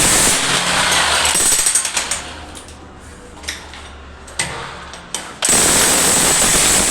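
Hand-held power hammer (jackhammer-type tool) running, then stopping about two seconds in, leaving a low hum and a few clicks, and starting again about three seconds later.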